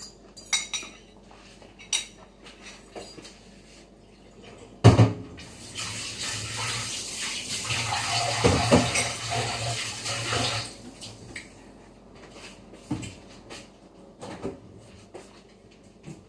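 Kitchen tap running into a sink for about five seconds, with dishes clinking and knocking under the water. A loud knock comes just before the water starts, and light clinks of a fork on a ceramic bowl are heard early on.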